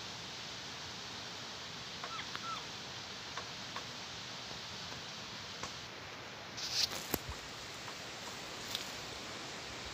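Steady hiss of forest ambience with a few faint short chirps about two seconds in and scattered light taps. A short cluster of sharper knocks and clicks comes about seven seconds in.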